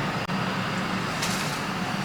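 Hot-air rework station blowing steadily while it heats a capacitor on a laptop logic board to desolder it, with a brief dip in the airflow noise about a quarter second in.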